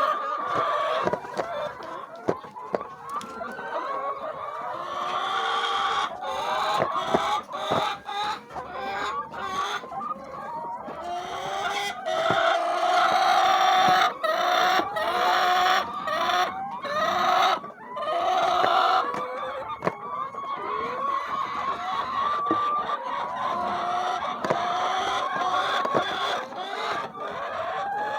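A flock of domestic chickens clucking and calling over one another continuously, with sharp clicks and knocks scattered throughout.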